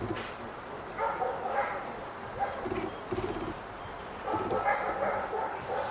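A dog vocalizing in three short bursts of high, pitched yelps and whines, about a second and a half apart.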